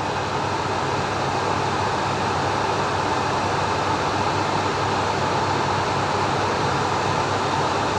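Steady rushing noise inside the cockpit of a Cessna Citation M2 jet in flight: airflow and engine hum with a faint steady tone, unchanging throughout.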